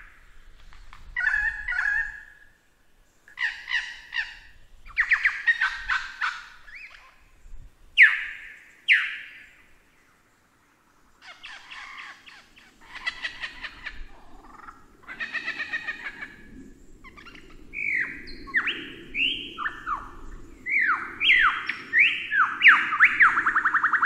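Lyrebird song: a varied run of different phrases, rattling chatters and sharp downward-sweeping notes, broken by a short pause near the middle. It ends in quick repeated sweeping notes.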